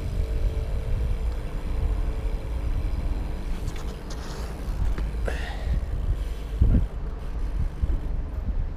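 Wind buffeting the microphone and BMX tyres rolling on asphalt while riding, a steady low rumble, with one sharp knock about two-thirds of the way through.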